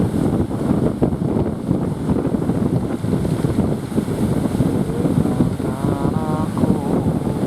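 Strong wind buffeting the microphone, a dense gusty rumble, with a brief wavering tone about six seconds in.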